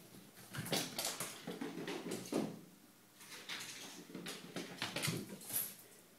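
A cat's paws and claws scrabbling and pattering across a tiled floor as it dashes about, an irregular run of quick scuffs and taps.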